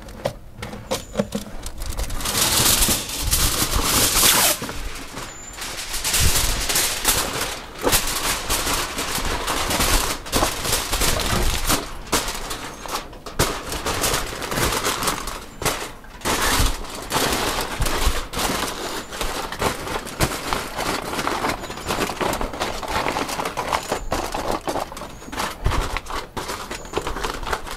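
Aluminum foil crinkling and crackling as it is wrapped around a whole smoked chicken, in dense stretches that swell and fade.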